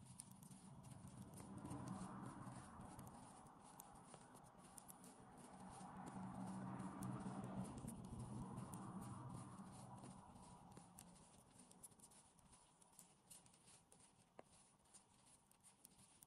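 Metal knitting needles clicking and tapping faintly and irregularly as stitches are worked, over a faint low background noise that swells up twice, around two seconds in and again around seven seconds in.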